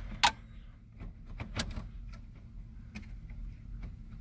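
Scattered sharp clicks and knocks from prying at the stuck clips holding the factory radio in a 1996 Ford F-150's dash. The loudest is a sharp click just after the start.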